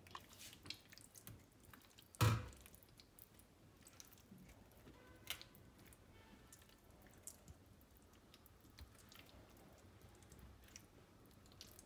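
Hands moving and pressing marinated chicken and potato pieces on a metal baking tray: faint wet squelching with small clicks as pieces shift on the tray. One loud knock comes a little over two seconds in.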